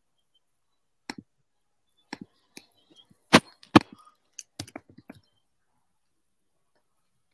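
A dozen or so irregular sharp clicks and knocks over about four seconds. The two loudest come close together about halfway through.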